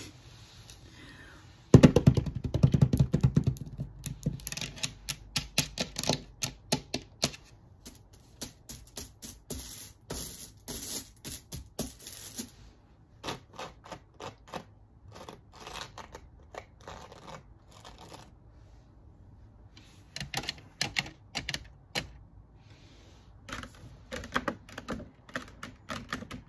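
Long fingernails tapping quickly and irregularly on a Louis Vuitton bag. There is a dense run of clicks, loudest and heaviest at its start, for about ten seconds from a couple of seconds in, then scattered bursts of taps with short pauses.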